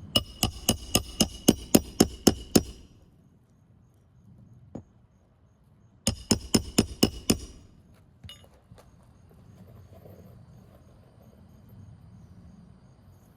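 A hammer driving roofing nails into a new asphalt shingle: a quick run of about a dozen ringing metal strikes, about four a second, then a pause and about six more, setting the fasteners that hold the replacement shingle.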